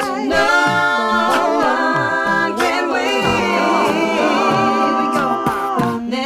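Multi-tracked a cappella singing: several layered voices holding chords, over a low vocal beat that falls in pitch about twice a second, with no reverb.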